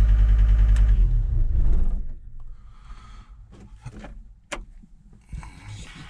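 John Deere track skid steer's diesel engine idling steadily, then shut off about a second in and running down to a stop within another second. After that, a few light clicks and one sharp click in the cab.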